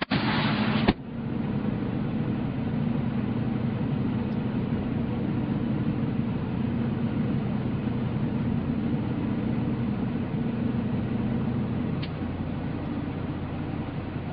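Semi truck's diesel engine idling steadily, a low even hum. It opens with a brief loud hiss that cuts off about a second in, and there is a small click near the end.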